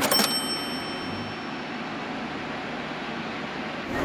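A bright, bell-like coin 'ding' sound effect marking a cost, ringing out at the start and fading within about a second over a steady low background hum.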